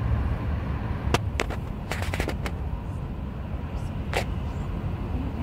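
Steady low rumble with a cluster of sharp clicks between about one and two and a half seconds in, and one more click about four seconds in.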